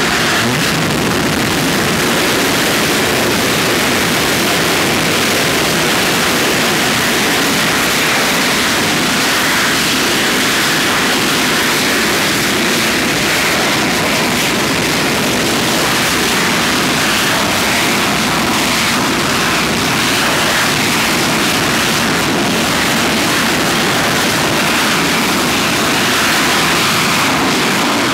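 Copenhagen Suborbitals' TM65 Tordenskjold liquid-oxygen and ethanol rocket engine firing on a static test stand: a loud, steady rushing noise at an even level throughout.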